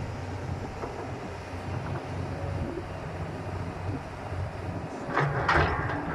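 Heavy diesel engine of the excavator and dump truck running steadily, with a loud burst of knocking and rattling about five seconds in.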